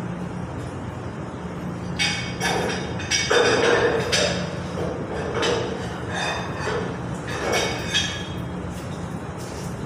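Metal tool knocking and clinking against the heating-element port of a water-heater tank, a run of sharp strokes with some scraping, loudest a few seconds in, over a steady low hum of plant-room machinery.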